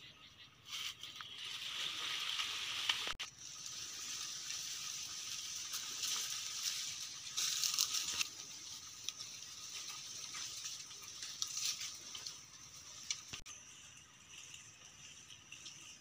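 Dry leaf litter crunching and rustling under bare feet as a person walks and moves through brush, over a steady high-pitched insect buzz. Two sharp clicks, about three seconds in and again near the end.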